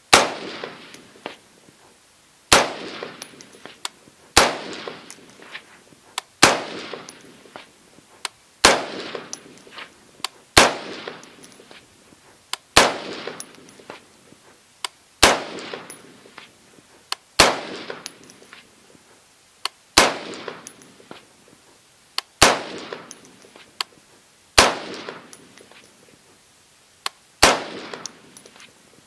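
RTT Firearms Patriot AR-15 rifle in 5.56 NATO/.223 firing slow, deliberate semi-automatic single shots: thirteen sharp reports about two seconds apart, each followed by a trailing echo.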